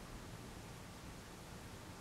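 Faint steady hiss of room tone with no distinct events.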